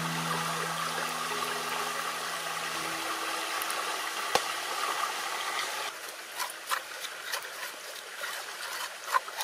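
A thin stream of liquid pours steadily into a bowl of flour with a trickling sound, broken by one sharp click about four seconds in. About six seconds in the pouring stops, and a stick begins stirring the batter, with irregular scrapes and clicks against the bowl.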